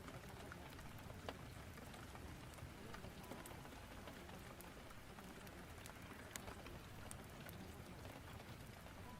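Rain storm ambience mixed with a fireplace: a steady, faint rain hiss with scattered sharp crackles and pops throughout.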